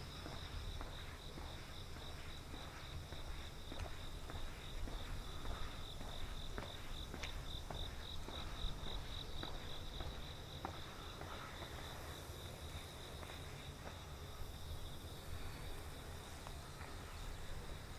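Crickets chirping in one steady, high, pulsing trill, with a walker's footsteps and a low rumble underneath.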